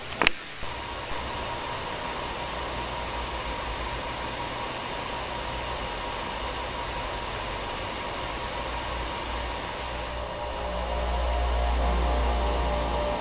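Steady rushing noise, like a hiss or rush of air, with a faint steady tone in it; about ten seconds in it turns duller and a low hum grows louder.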